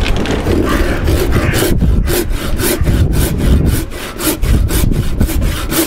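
Handsaw cutting lengthwise through a piece of scrap timber to cut out a wedge, a rasping push-and-pull stroke repeating about four times a second. The strokes are less regular for the first second or so, then settle into an even rhythm.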